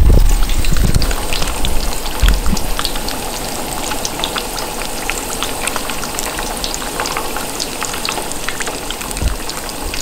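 Trout fillet frying in hot oil in a skillet, a steady sizzle with many small crackling pops. A couple of low rumbles sound in the first few seconds.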